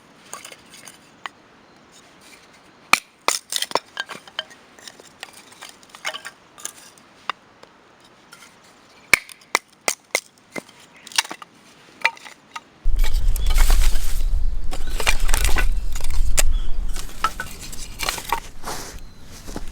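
Scattered sharp clicks and clinks of hard objects being handled. About 13 seconds in, a loud low rumble joins them, like wind or handling on the microphone, and eases off near the end.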